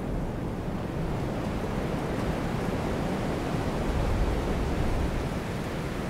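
Ocean wind ambience: a steady rush of wind over the sea with the wash of surf, swelling a little about four seconds in.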